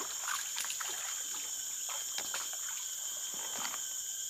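Water splashing and trickling in irregular bursts as a hooked snakehead is worked in at the surface of a creek, over a steady high drone of forest insects.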